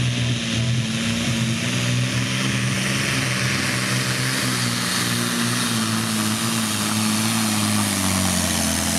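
Diesel engine of a Volvo NL12 pulling truck running flat out under full load as it drags a pulling sled, a steady deep drone with a hiss over it. The engine note sinks a little over the last few seconds.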